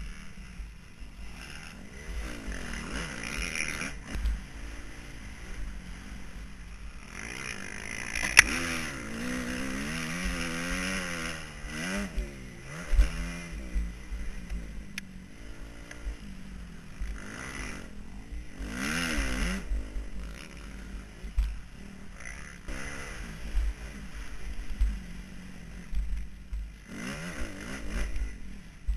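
Motocross bike engine revving up and down as it is ridden hard around a dirt track, heard through an action camera mounted on the bike, with scattered sharp knocks and rattles.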